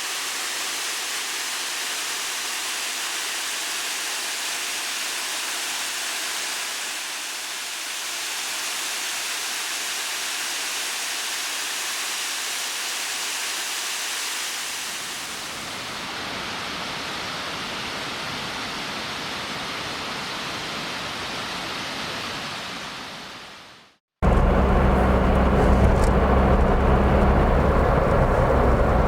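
Steady rush of water from the Motaki Fukuryusui springs and cascades, changing in tone about 15 seconds in. It fades out about 24 seconds in. A louder steady sound with a low hum follows, most likely a vehicle engine.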